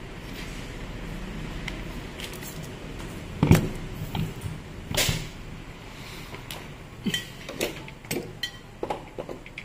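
Knocks and clatter of an angle grinder and its rubber power cord being handled on a workbench. The loudest knock comes about three and a half seconds in, with smaller ones near the end. A low hum sits under the first few seconds.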